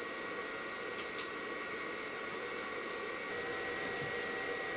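Steady whirring hum from the X-Carve CNC machine setup just after its start button is pressed, with two quick clicks about a second in.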